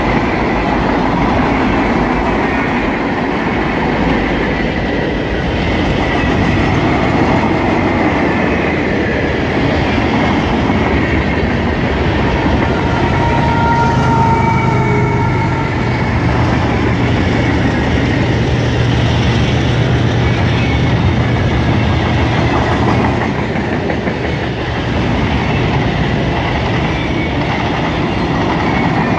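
Long freight train rolling past at trackside, a steady rumble with wheels clattering over the rail joints. About halfway through, a mid-train diesel locomotive passes, adding a steady low engine hum for about ten seconds.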